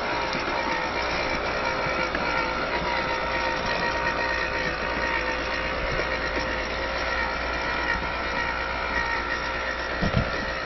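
Electric drive motor and gearbox of a WPL C74-1 radio-controlled scale Suzuki Jimny running steadily with a whine, with a couple of low knocks near the end.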